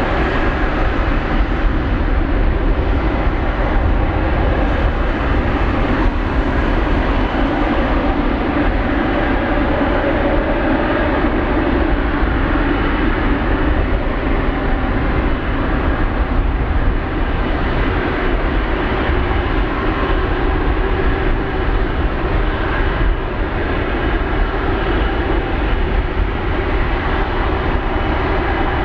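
Jet airliner engines at takeoff thrust on a departure from runway 34L: a loud, steady roar with a strong low rumble.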